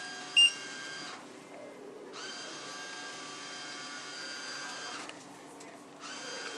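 Vending machine's vend motor whining in three runs with short pauses in between, the machine glitching and dispensing several bags of chips instead of one. A short electronic beep about half a second in.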